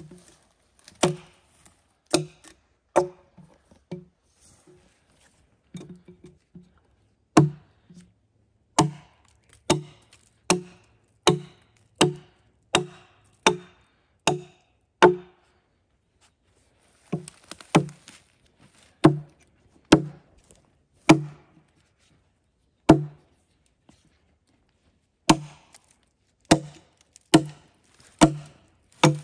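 Wood being chopped or struck with a hand tool: a long run of sharp, loud strikes at about one every three-quarters of a second, broken by short pauses about 4 s, 15 s and 23 s in.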